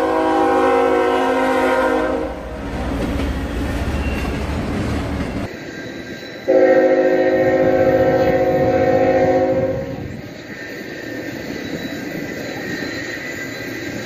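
Nathan Airchime K5HL five-chime locomotive air horn sounding a steady chord. One long blast ends about two seconds in, followed by train rumble. A second blast of about three seconds comes near the middle, and the passing train is heard after it.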